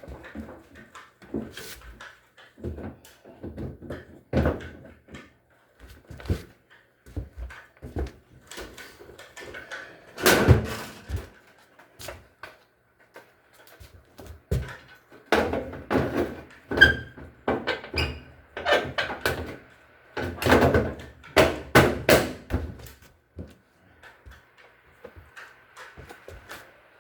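Irregular clunks, knocks and rattles of hard parts being handled and moved during work on a washing machine, with busier clusters about ten seconds in, around fifteen to seventeen seconds, and around twenty to twenty-two seconds.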